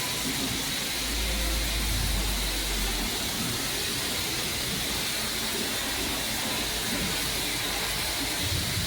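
Steady hiss of a strong water spray washing down a refrigerator, with a low rumble for about two seconds near the start.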